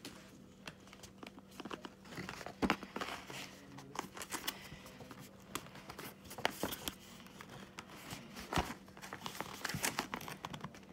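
Cardboard box being handled and worked open: rustling, scraping and scattered light clicks as a tight-fitting inner part is eased out.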